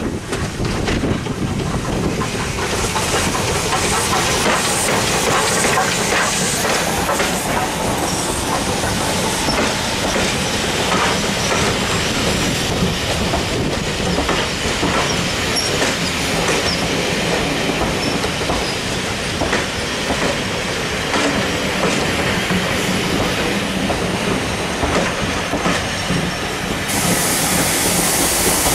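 A steam-hauled passenger train running past at close range, the Ivatt class 2MT tank engine No. 41312 and then its coaches, with the carriage wheels clacking over rail joints.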